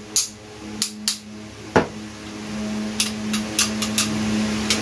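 A series of sharp metal clicks and light taps, with one heavier knock about two seconds in, from small airgun trigger-mechanism parts being fitted and tapped into place. A steady low hum runs underneath.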